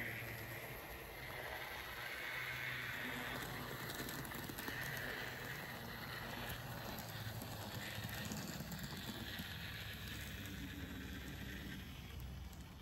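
N gauge model Class 47 locomotive running along the track hauling coaches. Its small motor gives a steady whine, with light clicking of the wheels over the rails.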